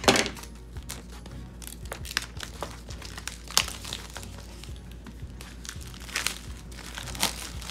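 Plastic shrink-wrap crinkling and tearing as it is peeled off a cardboard trading-card box, in many sharp crackles. The loudest crackle comes right at the start.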